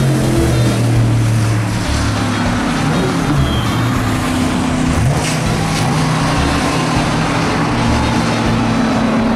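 Racing car engines running hard at speed, the engine note holding steady with a shift in pitch about halfway through, over the hiss of tyres on a wet track.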